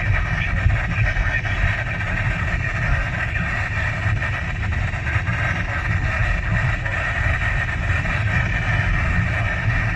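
Weather radio receiver hissing with heavy static from a weak, barely received signal, steady and loud, over a low steady rumble like a moving car's road noise.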